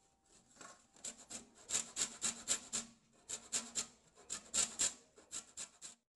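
A lemon being grated for its zest on a stainless steel box grater: short scraping strokes, about four a second, in a few quick runs with brief pauses between.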